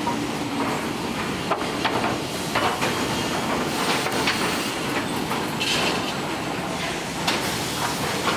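Machinery running on a lumber-processing line in a woodworking plant: a steady din of motors and conveyors, with scattered short knocks and clatters throughout.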